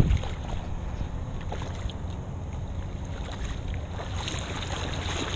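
Wind rumbling on the microphone over water sloshing in a shallow bay, with one sharp thump right at the start. The splashy wash grows louder from about four seconds in.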